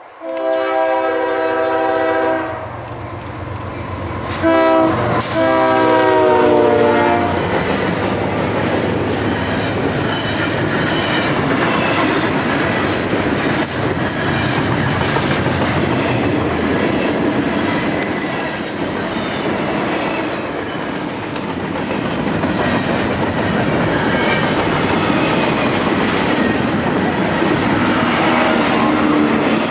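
Freight locomotive air horn sounding two blasts, the second one bending down in pitch as the locomotive passes, then the steady rolling rumble and rhythmic wheel clatter of a double-stack container train's well cars going by.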